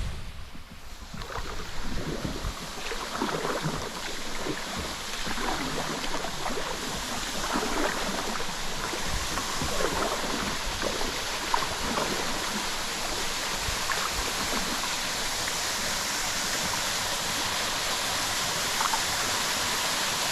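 Water splashing and lapping around a fishing kayak, with irregular small splashes in the first half settling into a steady rushing hiss of water.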